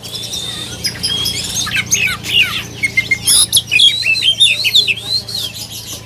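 Several caged songbirds chirping and whistling at once, short overlapping calls and sliding whistled notes.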